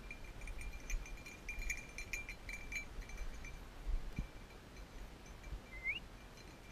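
A hunting dog's collar bell jingling in uneven clusters as the dog works through the grass, busiest in the first few seconds and fainter afterwards. A short rising chirp sounds near the end.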